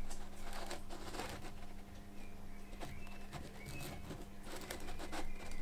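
Quiet room tone with a steady low hum and faint clicks and rustles of a stainless steel plate being handled, with a few faint short high chirps in the middle.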